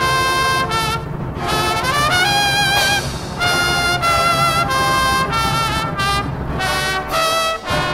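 Drum and bugle corps horn line playing a brass tune in held notes, with a run sliding upward about two seconds in.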